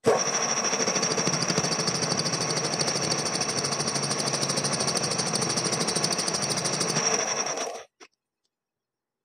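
Gear-slotting machine running, its reciprocating cutter chattering fast and evenly with a steady high whine as it cuts teeth into a gear blank. It stops suddenly about eight seconds in.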